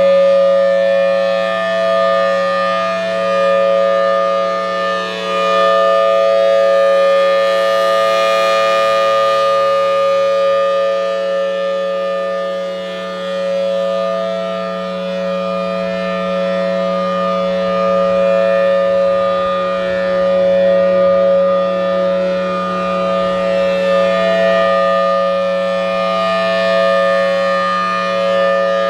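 Federal Signal Thunderbolt 1003 supercharged outdoor warning siren sounding a steady Alert tone at full pitch. The chord of tones holds level in pitch while the loudness swells and dips slightly as the rotating head turns.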